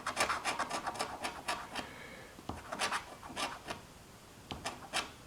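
Scratching the coating off a scratch-off lottery ticket: short, irregular rubbing strokes, quicker in the first couple of seconds and sparser after.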